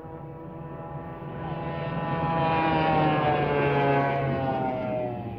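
F1 racing powerboat's engine at full speed passing by: it grows louder, peaks about three seconds in, then fades, its pitch dropping slightly as it goes past.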